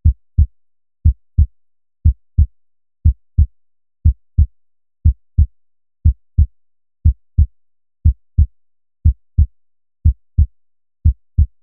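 Heartbeat sound effect: low paired thumps, lub-dub, about one beat a second, with silence between the beats.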